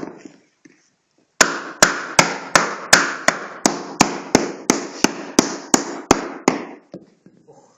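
A hammer striking repeatedly: a single knock, then after about a second and a half a steady run of about fifteen blows, close to three a second, each dying away briefly. The run stops about a second before the end.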